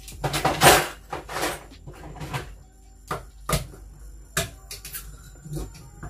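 Kitchen handling noises: a run of sharp knocks and clicks, loudest in a short clatter about half a second in, then single knocks every second or so.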